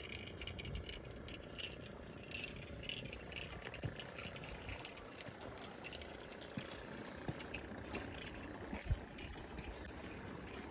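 Spinning fishing reel being cranked to bring in a hooked fish, its gears and line roller making a fast run of small clicks and rattles, over low wind and water noise.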